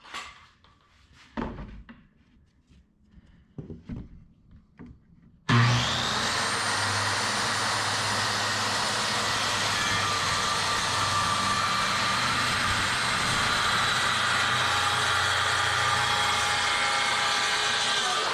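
A few light handling knocks and clicks, then about five and a half seconds in a power saw switches on abruptly. It runs with a steady high motor whine while cutting through half-inch plywood.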